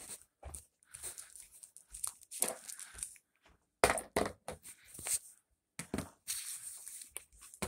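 Irregular rustling, scraping and soft knocks of handling noise: a phone being moved about and rubbed close to its microphone.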